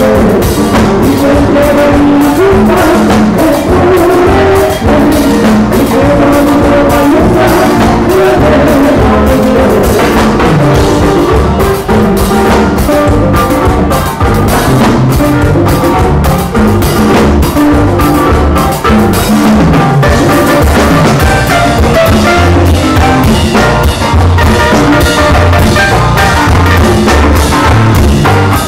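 Live tropical dance band playing: a drum kit and timbales keep a steady, busy beat under guitars and other pitched instruments, loud and continuous.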